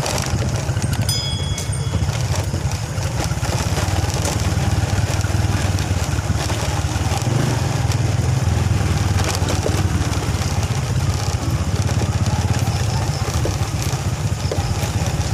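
Motorcycle engine running steadily while riding along a road, a continuous low drone.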